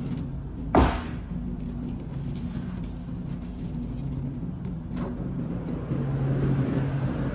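Supermarket cooler aisle with a steady low hum and the rattle and handling of a shopping cart, and one sharp thump just under a second in.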